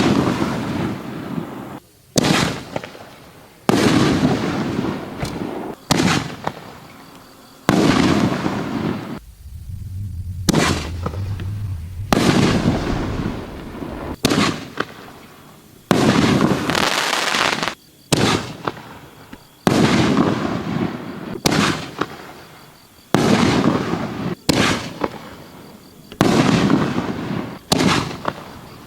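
Consumer aerial fireworks firing shot after shot, about one every one and a half to two seconds, each a sharp bang followed by a fading crackle and hiss.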